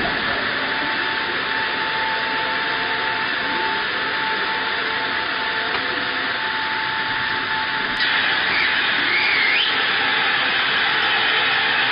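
Airliner's hydraulic landing-gear system working as the main gear doors open and the gear leg lowers: a steady hiss with a steady whine that fades out about seven and a half seconds in. About eight seconds in there is a sharp click, the noise gets louder, and a brief wavering squeal follows.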